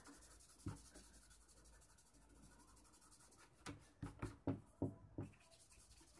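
Fingertip rubbing and dabbing charcoal into drawing paper, faint, with a quick run of short strokes starting about three and a half seconds in.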